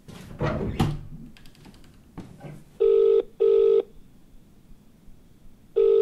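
UK-style ringback tone of an outgoing call heard through a smartphone's speakerphone: two short beeps in quick succession about three seconds in, and the next pair starting just before the end. A brief noise comes about half a second in.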